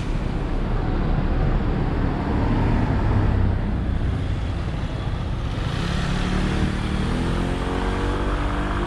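Street traffic with motor scooters and cars passing. A steady low engine rumble, with an engine rising in pitch as it accelerates from about six seconds in.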